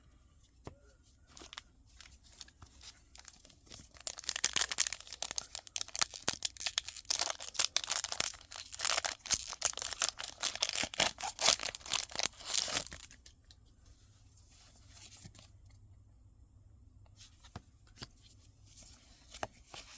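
Foil Pokémon booster pack wrapper being torn open and crinkled: a dense run of crackling from about four seconds in until about thirteen seconds, then only faint handling clicks.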